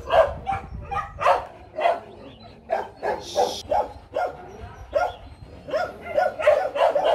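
Month-old Rottweiler puppies whimpering and yipping in short, repeated cries, several a second, while they nurse and jostle beside their mother.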